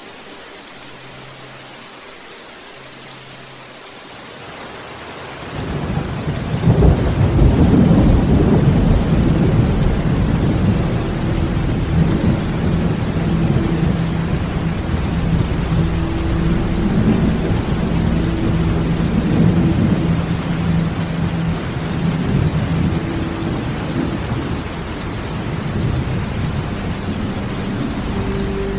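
Steady rain hissing, then about five seconds in a long roll of thunder swells into a loud, deep rumble that keeps rolling under the rain and eases only a little near the end.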